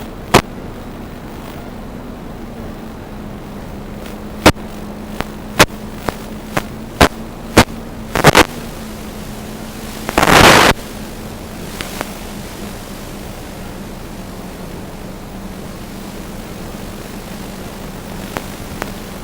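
Steady hiss with a faint low hum, broken by a run of sharp clicks or pops and, about ten seconds in, a loud half-second burst of crackling noise.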